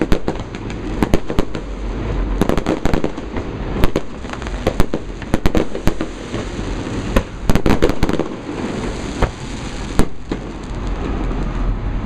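Fireworks display: many sharp bangs and crackles in rapid, overlapping succession over a steady low rumble. The bangs come thickest a little past the middle and thin out near the end.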